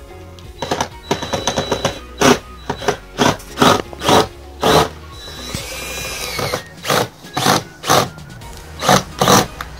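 Cordless drill-driver running in a series of short bursts as it drives screws into a mounting bracket, with scattered clicks in the first two seconds.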